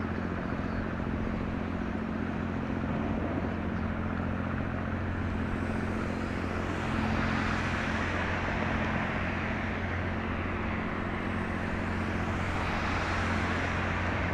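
Steady low drone of a passing container ship's engine, under a broad hiss that grows louder about seven seconds in.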